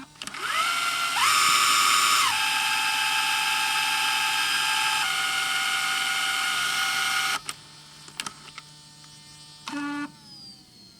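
An internal motor of a Sony DCR-PC115E camcorder whirring: a high whine that rises in pitch as it spins up, holds steady with a couple of pitch steps, then stops suddenly about seven seconds in, followed by a few small mechanical clicks.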